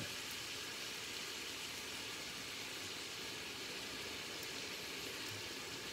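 Steady sizzling hiss of pork mince, onion and seafood meatballs frying in a pan.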